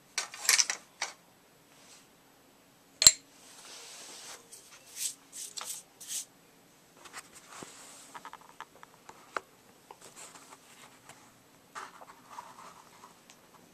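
Small plastic parts and metal screwdrivers being handled and set down: scattered clicks, clinks and rattles, with one sharp click about three seconds in.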